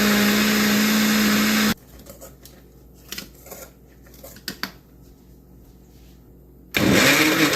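Bear countertop blender motor running on speed two, blending a frozen-fruit smoothie with a steady hum, then switched off abruptly about two seconds in. After a few seconds of quiet with a few light knocks, the motor starts again near the end, spinning up to speed.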